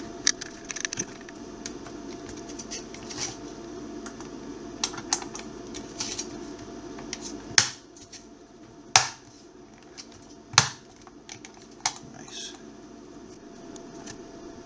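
White plastic housing parts of a Dyson Hot+Cool fan being handled and pressed together: scattered light clicks and taps, with a few louder sharp knocks in the second half.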